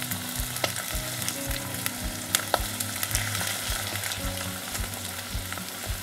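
Chicken thigh pieces sizzling skin-side down in hot rice oil in a Staub cast-iron pot: a steady frying hiss with scattered small pops and crackles as the skin renders out its fat.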